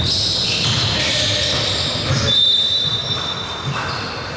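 Basketball game in play: a ball bouncing on a gym court amid shuffling feet, with a high squeak lasting about half a second a little past halfway.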